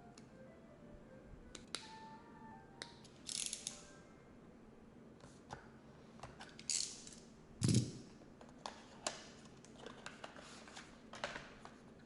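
Sharp clicks and short scrapes of computer parts being handled during a PC build, with one louder thump a little past the middle, over soft background music.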